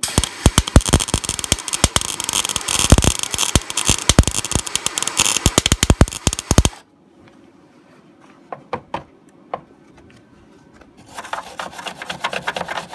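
MIG welder arc crackling with frequent sharp pops as a steel patch is welded, stopping abruptly after about seven seconds. A few faint clicks follow, then near the end steady rhythmic rasping starts as the weld is filed down.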